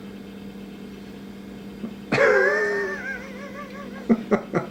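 A baby's wavering, whining cry at the sour taste of a pickle, starting about two seconds in and lasting about a second and a half. Near the end comes a quick string of short vocal bursts.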